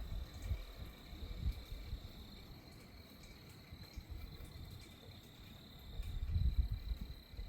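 Insects trilling steadily at a high pitch, under gusty wind buffeting the microphone with a low rumble that swells about six seconds in.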